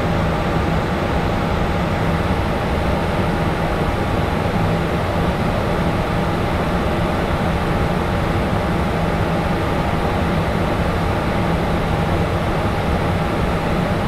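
Steady cockpit noise of a jet in cruise flight: a constant rush of airflow with a low hum and a faint high steady whine.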